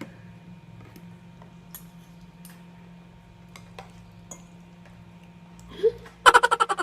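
Faint scattered clicks of utensils against food containers during eating, then, near the end, a short burst of rapid laughter that is the loudest sound.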